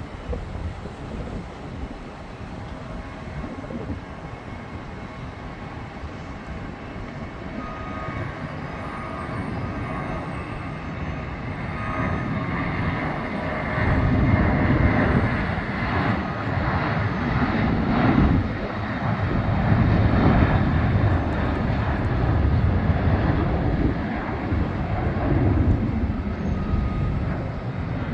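Boeing 737-800's CFM56-7B turbofan engines at takeoff thrust. The sound grows steadily louder over the first half, then stays loud as a rough, wavering low rumble with faint steady whining tones above it as the jet goes by.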